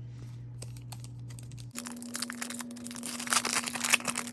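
Foil wrapper of a hockey card pack crinkling and tearing as the pack is opened, with light clicks from the cards being handled. The crinkling starts about two seconds in and is loudest near the end, over a low steady hum.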